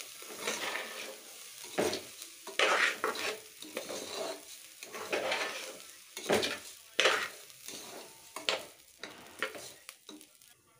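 A metal spatula scraping and stirring washed rice grains as they fry in hot oil in an aluminium pressure cooker, in irregular strokes, quieting near the end.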